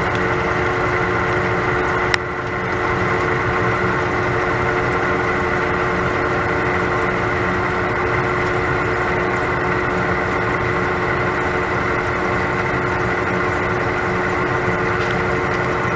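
Metal lathe spindle running at 300 RPM under power feed, its tool taking a light cleanup pass, about 25 thou deep, under the rust on a bar. It is a steady machine hum with a constant whine, and there is a single sharp click about two seconds in.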